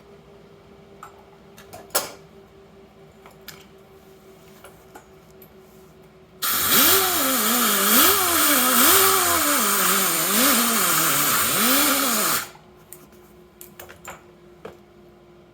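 Welding arc running for about six seconds, starting and stopping abruptly, as weld is laid to build up a worn drill part. A few light metallic clicks come before and after it.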